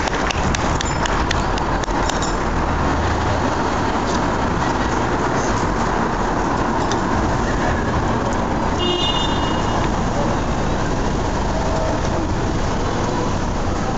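Steady outdoor background noise with a low rumble, and a brief high-pitched tone about nine seconds in.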